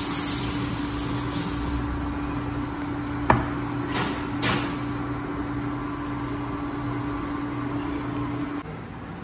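Steady electrical hum of an induction hob heating a nonstick frying pan, with two sharp clicks a little after three seconds and about four and a half seconds in. The hum stops shortly before the end.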